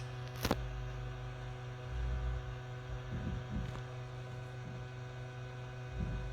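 Steady electrical mains hum, with a sharp click about half a second in and a few soft low bumps of handling.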